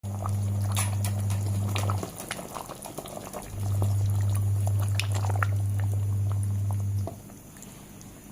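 Food sizzling in a pan, with scattered crackles and pops, over a loud steady low hum. The hum stops about two seconds in, comes back a second and a half later, and cuts out again near the end.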